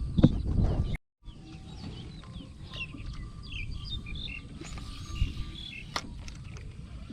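Small birds chirping in short calls over a steady low rumble. A louder rumble fills the first second and cuts off abruptly, and a single sharp click comes about six seconds in.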